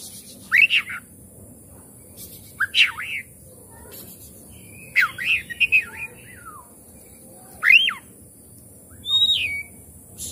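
Oriental magpie-robin singing: about five short, loud whistled phrases of quick up-and-down sweeps, separated by pauses of a second or more.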